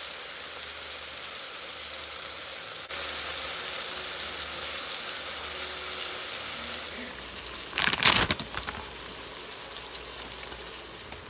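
Andouille sausage sizzling in a pressure cooker's pot on sauté mode, a steady hiss. About eight seconds in there is a short, louder clatter.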